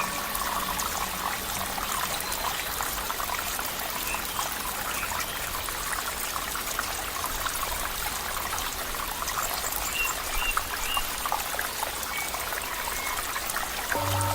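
Flowing water trickling and splashing steadily, a dense patter of small splashes with no pauses.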